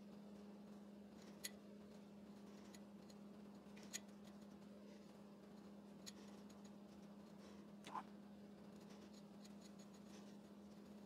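Faint clicks and scraping of a hand tap cutting 10-24 threads in a metal bracket, a few separate clicks with the loudest about eight seconds in, over a low steady hum.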